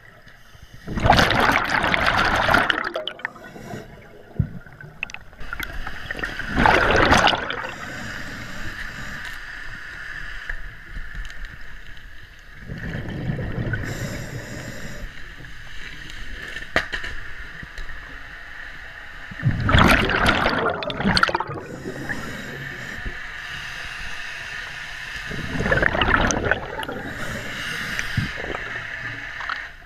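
Scuba diver breathing through a regulator underwater: a loud rush of exhaled bubbles every several seconds, with a steady hiss between breaths. Near the middle comes a low, dull thud from the mooring block settling onto the bottom.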